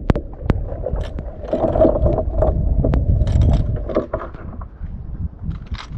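Kamba (Bongkawil) shells clicking and scraping against each other and the boat's hull as a mesh net bag of them is handled, with a few sharp clicks in the first seconds and a denser clatter in the middle. Under it runs a low, steady rumble of water and wind around the boat.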